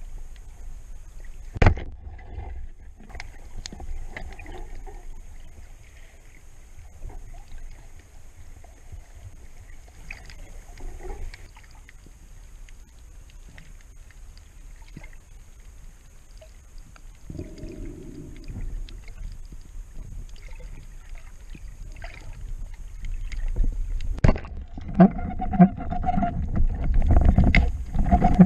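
Underwater sound on a spearfishing dive: low water noise and the diver's movements, with a sharp click about two seconds in. Near the end a sharp snap is followed by several seconds of loud scuffling and knocks as a speared sea bass is handled on the spear shaft.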